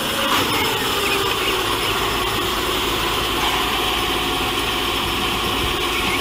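Heavy crane tow truck's engine running steadily at idle.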